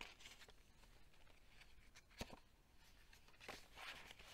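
Very faint rustling and sliding of paper as the tags and pages of a handmade junk journal are handled, with one light tap about two seconds in and a slightly louder rustle near the end.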